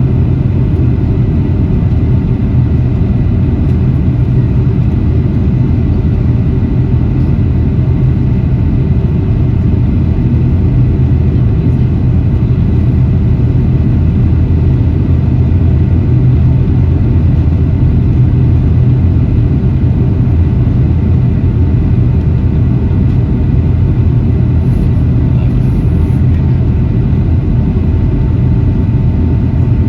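Steady rumble of airflow and engines inside a Boeing 757's cabin in flight on final approach, with a faint steady high hum over it.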